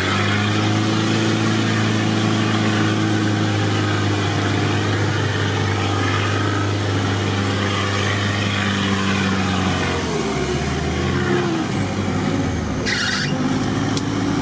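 UAZ off-roader's engine running at steady revs while driving off-road; about ten seconds in the engine note drops and then picks up again. A short hiss near the end.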